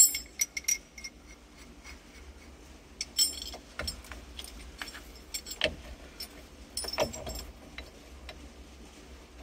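Metal clinks and small knocks of a steering wheel puller and its bolts being handled and fitted against the steering wheel hub. The clinks come in scattered clusters, loudest at the start and again around the middle.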